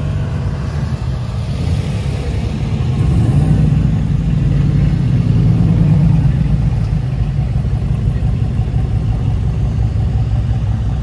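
A car engine running, its note swelling about three seconds in and easing off again after about six.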